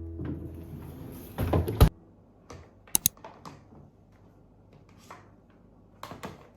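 Music fading out, then scattered light clicks and knocks of small objects being handled, the sharpest about two and three seconds in and a quick cluster near the end.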